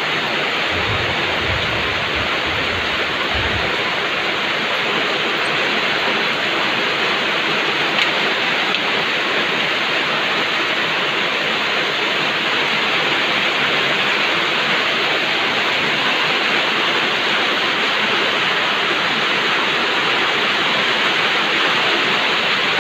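Heavy rain pouring down in a steady, even rush. A few low thumps in the first few seconds and a single click about eight seconds in.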